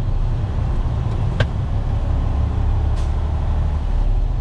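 Tractor-trailer's diesel engine running at crawling speed, heard from inside the cab as a steady low rumble, with a sharp click about a second and a half in.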